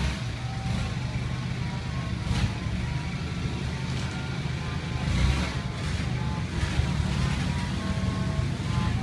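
Street ambience dominated by a steady low rumble of passing motor traffic, with scattered short clicks and clatter.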